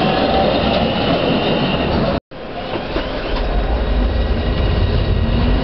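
Manchester Metrolink 2000-series (T-68A) tram running, its inverter-fed AC traction motors giving thin whining tones over the wheel and running rumble. The sound drops out for a moment about two seconds in and comes back as a heavier low rumble, with the whine starting to climb in pitch as the tram accelerates.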